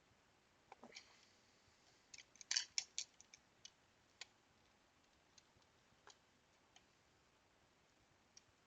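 Scattered faint clicks and light taps of small plastic console parts and tools being handled, with a short cluster of sharper clicks about two and a half seconds in.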